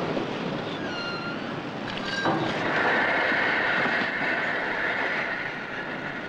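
Forebody of a 12,800-tonne product tanker sliding down the launching ways into the river at its launch: a steady rumbling, grinding noise, with a brief high tone about a second in and a high squeal from about two and a half to five seconds in.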